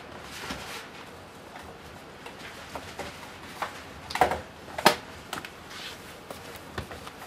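Quiet open-plan office ambience: a steady hum from the computers under scattered small desk clicks and knocks. Two louder knocks with a short ring come about four and five seconds in.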